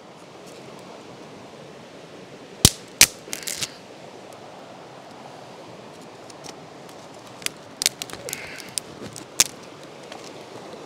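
Small damp sticks cracking and snapping on a birch-bark and fatwood campfire. Two loud sharp snaps come about three seconds in, then a quick run of smaller cracks, and a scatter more later with one loud snap near the end, over a steady faint hiss.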